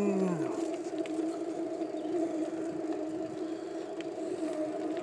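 Mountain bike riding along a dirt driveway, heard through a handlebar-mounted phone in a waterproof case: a steady droning hum over tyre and rattle noise with small ticks, and a short falling whine right at the start.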